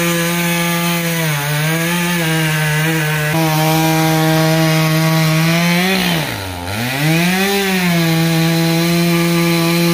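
Two-stroke chainsaw running at high revs while cutting into a block of old-growth red cedar. The engine pitch holds steady, dips briefly about a second in, drops sharply about six and a half seconds in, then climbs back up.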